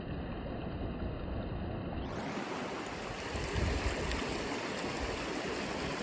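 Shallow creek running over a sandy, stony bed: a steady rush and babble of water.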